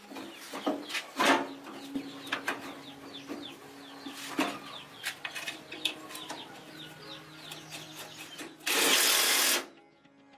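Chickens clucking and calling among scattered knocks and clicks, with a loud burst of hissing noise lasting about a second near the end.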